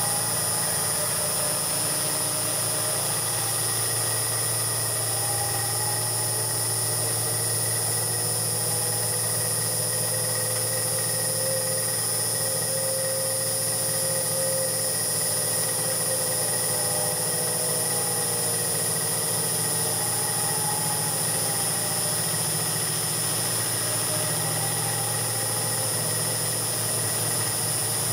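Home-built CNC milling machine milling the profile of an engine cam with an end mill: steady machine noise with a high whine. A fainter tone slowly rises and falls around the middle as the cut moves around the lobe.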